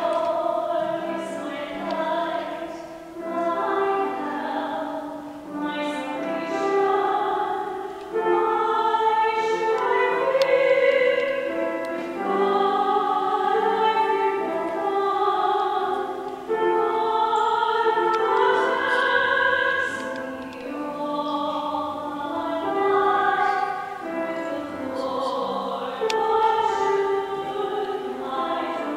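Choir singing a slow hymn in held notes that move from one pitch to the next every second or so.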